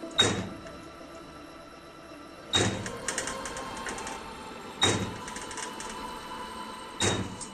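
Hand spot welding machine making repeated welds on stainless steel: four sharp clunks about two seconds apart, each followed by a short crackling tail.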